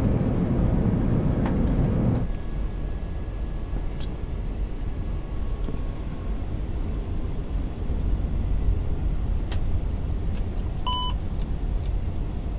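Steady low rumble of airflow and engines inside an Airbus A380 flight deck on approach. The rumble is louder for about the first two seconds, and a short electronic beep sounds about eleven seconds in.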